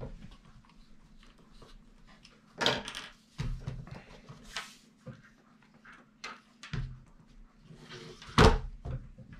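Nokta Makro Simplex+ metal detector's lower shaft and search coil being handled and fitted together on a tile table: scattered knocks and clatter, with a brief rustle in the middle and the loudest knock near the end. A faint steady hum runs underneath.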